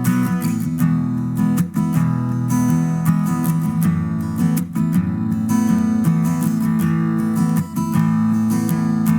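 Intro music: a strummed acoustic guitar playing a steady rhythm.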